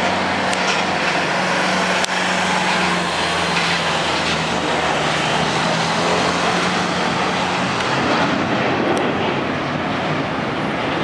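Steady, loud engine noise, a broad rush with a low hum under it that fades about eight seconds in.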